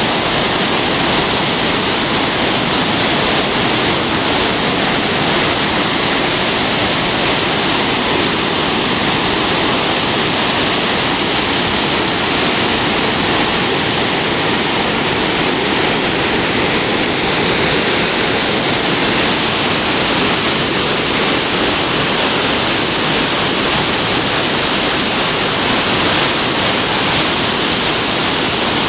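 The Spokane River near flood stage pouring over a low spillway dam into churning whitewater: a loud, steady rush of falling water.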